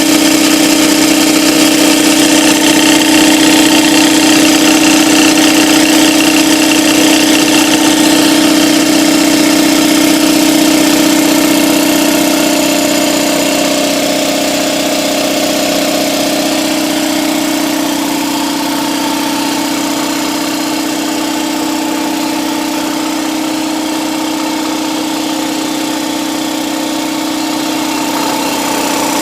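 Red Husky 60-gallon electric air compressor running steadily, its pump making a loud, even hum and clatter; the level eases slightly about halfway through.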